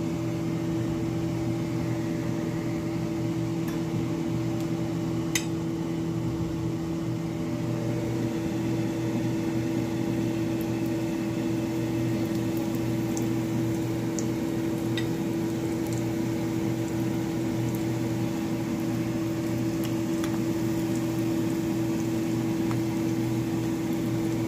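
Breaded shrimp deep-frying in hot oil in a saucepan: a steady sizzle with scattered small pops. A constant mechanical hum from a kitchen appliance or fan runs underneath and is the loudest sound.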